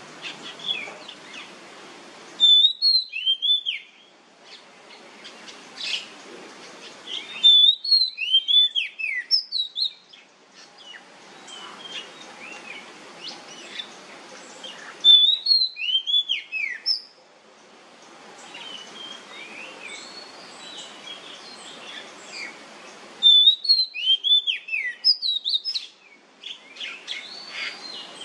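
Oriental magpie-robin singing in the loud, full style kept-bird fanciers call nyemplong: four bursts of sharp, downward-sliding whistled notes, several seconds apart. Softer chirps and a steady hiss fill the gaps between the bursts.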